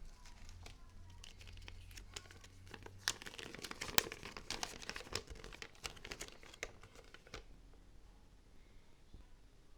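Product packaging being handled and opened by hand: a dense run of sharp crackles from about three to seven seconds in, with fainter handling noise before and after.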